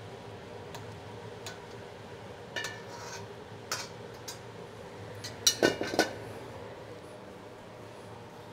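Metal clinks and light scrapes of a spatula against a wok as sauce is poured out, then a quick run of loud ringing metal clanks about five and a half seconds in as the wok is set back on the stove. A steady low hum sits underneath.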